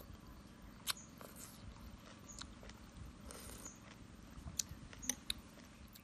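A person eating noodle soup from a spoon: slurping and chewing, with a few sharp clicks scattered through, the loudest about a second in and near the end.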